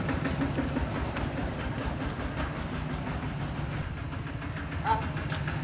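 A steady low mechanical hum, with faint clicks and handling noises over it and a short voice sound about five seconds in.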